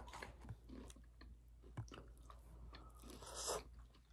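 Faint chewing of a bite of crispy battered fried pork (guobaorou), with small crunching clicks. A brief, louder scrape comes near the end.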